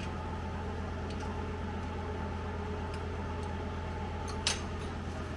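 Steady mechanical hum, like a fan or heater running in a small workshop, with a faint steady tone over it, a few light ticks and one sharp click about four and a half seconds in.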